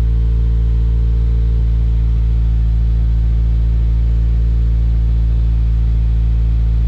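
2016 Subaru WRX's turbocharged 2.0-litre flat-four idling steadily through a stock header, Cobb catted J-pipe and Cobb titanium cat-back exhaust: an even, low drone that holds one pitch throughout.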